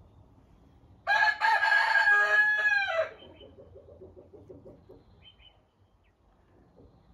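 A rooster crowing once, loud and about two seconds long, held on one pitch before falling away at the end, followed by a quieter run of quick, low pulses for about two seconds.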